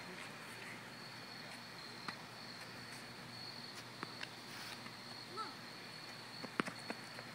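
Faint, steady, high-pitched trill of crickets, with a few faint knocks scattered through it, two of them close together about two-thirds of the way in.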